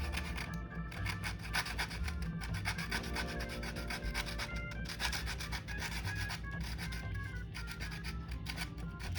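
Background music with a steady beat and a melody of held notes, with a fast, scratchy rubbing sound running through it.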